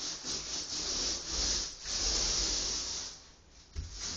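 Paint being spread on a wall in rasping strokes: quick and regular at first, then longer continuous strokes, with a brief pause a little after three seconds.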